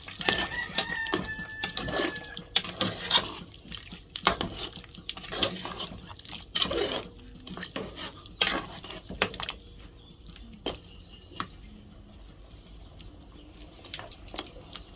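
A cooking pot and metal utensils clattering and knocking as stew beef is turned in the pot. The knocks come thick for the first ten seconds, then thin out to a few. A steady high call, like an animal's, holds for about two seconds near the start.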